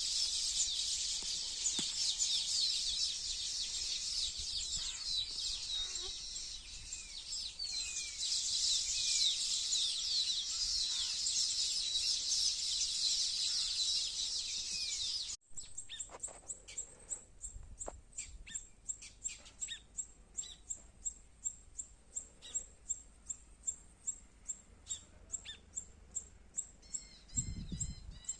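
Baya weavers chirping: a dense, busy chatter of many high calls, which cuts off suddenly about halfway through and gives way to quieter short chirps repeated about twice a second.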